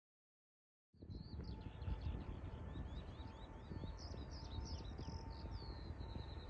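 Small songbirds singing in quick chirps and short falling notes, over a steady low rumble and a faint steady whine, starting suddenly about a second in.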